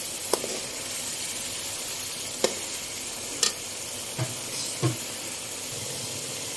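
Chicken and spice masala sizzling as it fries in oil in a metal pot, the stage where it is roasted well in the oil. A metal slotted spoon stirs it, knocking against the pot about five times.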